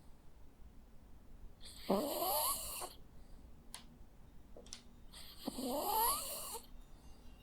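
Jack Russell terrier snoring in its sleep: two snores about a second long each, a few seconds apart, each rising in pitch as it goes. Two faint clicks come between them.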